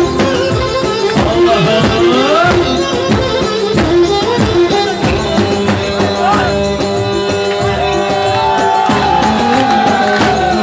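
Live çiftetelli dance music: a davul bass drum beaten in a quick, steady rhythm under a melody line that slides and bends in pitch.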